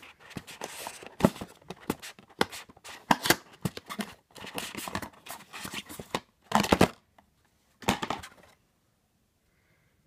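Small cardboard advent calendar box being opened by hand and a product lifted out of its packing: card and paper rustling with sharp taps and scrapes, stopping near the end.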